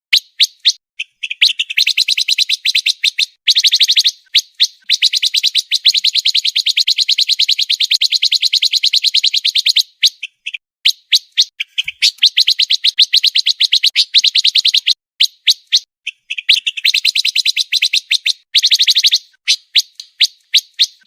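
Pancawarna songbird singing fast, dense trills in long runs of a few seconds each, broken by short pauses.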